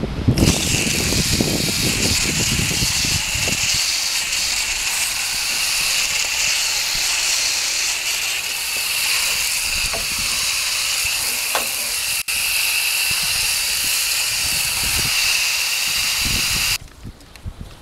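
Coil gun spraying foaming coil cleaner onto a heat pump's outdoor coil: a steady spray hiss that cuts out about a second before the end.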